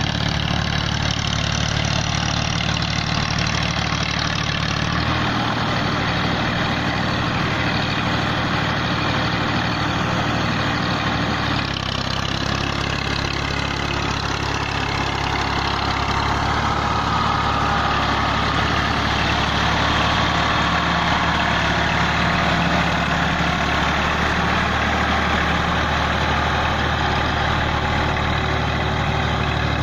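Massey Ferguson 240 tractor's three-cylinder diesel engine running steadily as it pulls a cultivator and levelling plank through flooded, puddled rice-field mud. The engine note shifts slightly about twelve seconds in.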